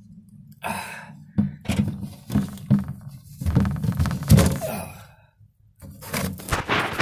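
A run of knocks and thunks, as of things being handled and set down, over a low steady hum; the knocking stops for a moment about five seconds in, then starts again.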